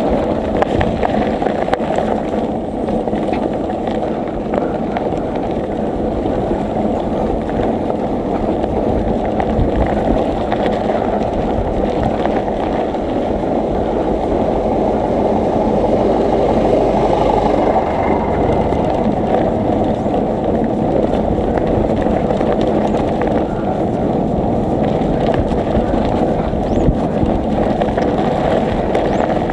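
Steady rumbling noise of a bicycle on the move: tyres rolling on the road, with wind buffeting the microphone.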